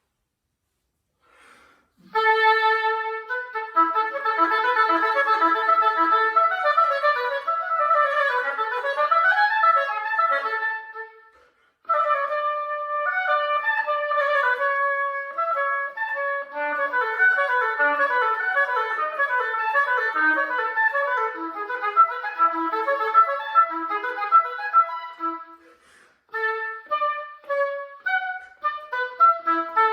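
Solo oboe playing a classical piece in running phrases broken by short pauses for breath, one near the middle and one near the end. In the last few seconds the notes turn short and detached.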